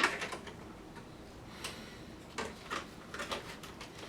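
Small parts of an airsoft HPA regulator kit being handled and laid out: a sharp click right at the start, then a handful of scattered light clicks and taps.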